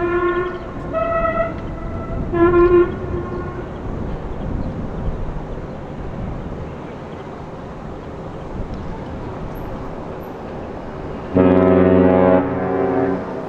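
Horn blasts: three short, higher-pitched toots in the first three seconds, then one long, loud, deep blast about eleven seconds in that lasts nearly two seconds.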